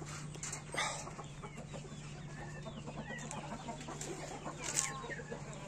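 Young Indian game chickens clucking and chirping softly, with a few short crunching steps on gravel and a steady low hum underneath.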